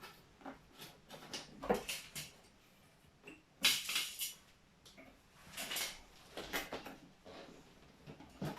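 Light clicks, taps and rustles of hand work on a model-making bench as side panels are pinned and glued together, in short irregular bursts with the clearest handling noises about two, four and six seconds in.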